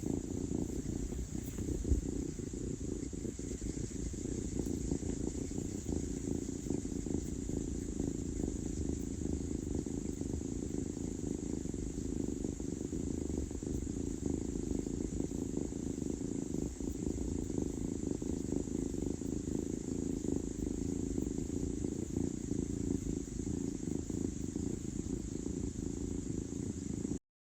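A cat purring steadily, close to the microphone; the sound cuts off abruptly near the end.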